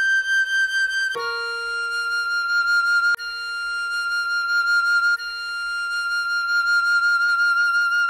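Soprano recorder playing the tune: a held G, then about a second in it steps down to a long held F that is re-tongued twice. A quieter low accompaniment tone sounds beneath it.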